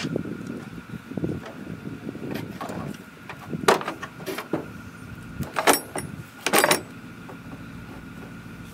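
A battery being worked loose and lifted out of a buggy's engine bay: scraping and rustling against its holder, then four sharp clinks and knocks between about three and a half and seven seconds in.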